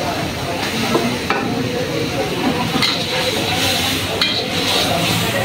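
Food sizzling in a wok over a gas burner as a metal spatula stirs and scrapes it, with a few sharp clinks of the spatula against the wok.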